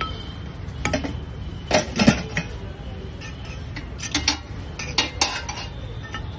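Metal spoon clinking and scraping against a large iron dosa griddle and steel pots, in about six short clattering bursts.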